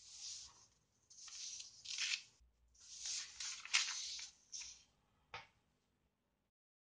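A sheet of paper rustling and sliding over a cutting mat as it is pushed and turned by hand, in several short scrapes over about five seconds, followed by a single light tap.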